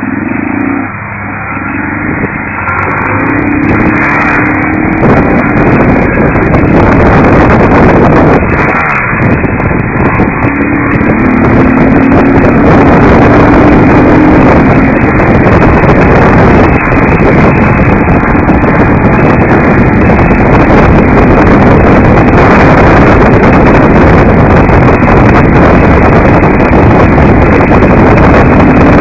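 Motorcycle engine at road speed buried in a loud, steady rush of wind and road noise on the microphone; a faint engine note rises a few seconds in and again near the middle.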